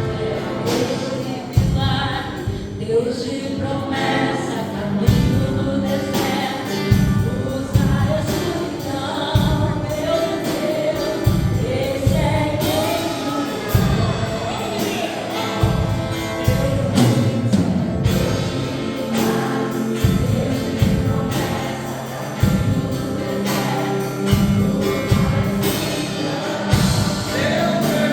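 Christian worship music: a group of voices singing together over a steady bass and drum beat.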